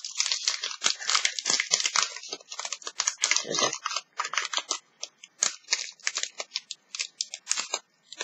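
Foil wrapper of a Pokémon Brilliant Stars booster pack crinkling as it is torn open by hand: rapid, dense crackles with a few brief pauses.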